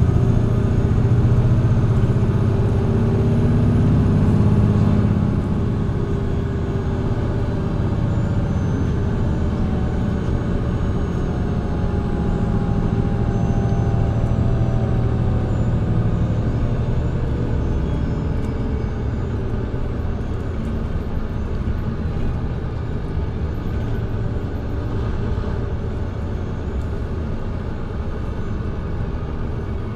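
Mercedes-Benz Citaro C2 G hybrid articulated bus's diesel engine and drivetrain running: loud under load for the first five seconds or so, then easing off to a lower, steady run that slowly fades, with faint whining tones rising and falling in the middle.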